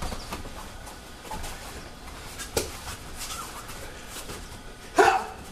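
A thud as two jujitsu practitioners land a throw and breakfall on a foam mat, then low background with a light knock. Near the end comes the loudest sound, a short loud vocal cry.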